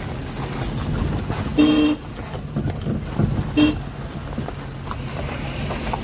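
Vehicle horn honking twice, a toot of about a third of a second about a second and a half in and a short one about three and a half seconds in, over a steady engine and road rumble.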